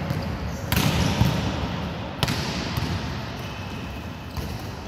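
Volleyballs being struck and bouncing on the court, sharp slaps a second or two apart that ring in a large hall's echo.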